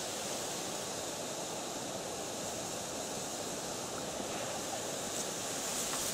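Steady wind outdoors, a constant even hiss with dry reeds rustling in it.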